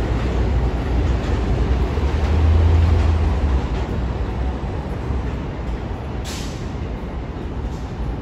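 R142 subway train running with a steady low rumble that swells about two to three seconds in, then a short hiss of air about six seconds in.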